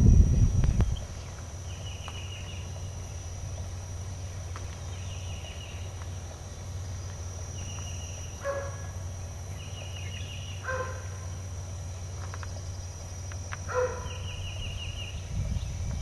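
Birds calling outdoors: a songbird repeats short, high chirping phrases every couple of seconds, and a harsher bird call sounds three times. A steady low hum runs underneath.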